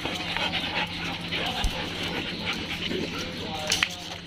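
Dogs panting close by, with a short whine near the end.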